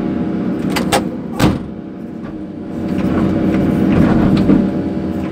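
Case CX220B hydraulic excavator's diesel engine running steadily, heard from inside the cab. Two sharp knocks come about one and one and a half seconds in. The engine sound then drops for about a second and rises again as the machine works.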